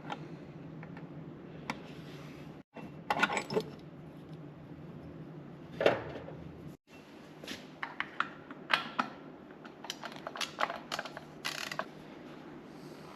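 Hand tools and metal electrical fittings being handled during wiring work: a string of irregular sharp clicks, clinks and knocks, with a short cluster of rattling about three seconds in and a busier run in the second half.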